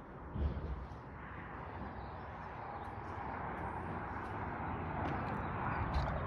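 Steady outdoor background noise that grows slowly louder, with a dull low thump about half a second in and a few faint clicks.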